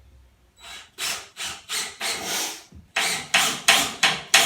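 Hand tool worked in repeated scraping strokes on the end of a wooden skirting board, trimming it to fit. The strokes come slower at first, then after a brief break settle to about three a second.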